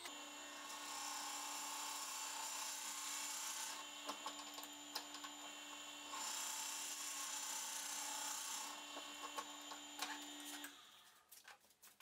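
Forstner bit boring into an apricot-wood blank turning slowly on a wood lathe set at its lowest speed: a steady scraping of the bit cutting the end grain, stronger in two spells, over the lathe's steady hum, which stops near the end.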